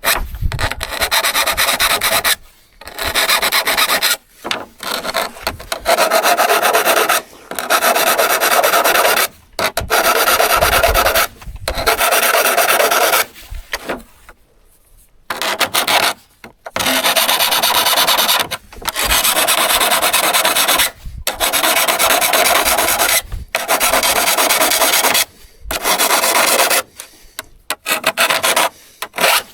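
Repeated long hand strokes scraping across a steel hand saw, about one every two seconds with a short pause near the middle, the blade ringing faintly under each stroke.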